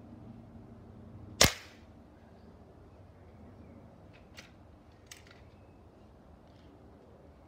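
A single Hatsan air rifle shot about a second and a half in, a sharp crack that dies away quickly. Two much fainter clicks follow a few seconds later.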